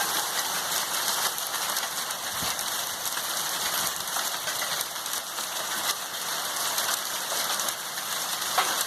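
Heavy rain falling with hail: a dense, steady hiss of rain peppered with many small sharp ticks of hailstones striking.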